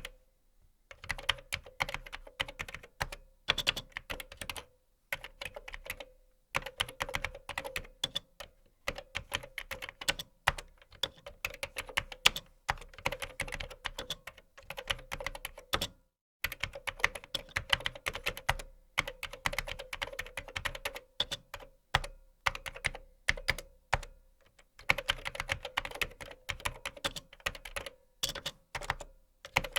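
Typing on a computer keyboard: rapid key clicks in runs of several seconds, broken by short pauses.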